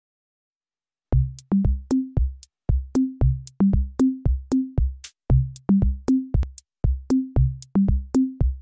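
Electronic intro music: a drum-machine beat of deep kicks and short pitched bass notes with crisp clicky hits on top. It starts about a second in, after silence.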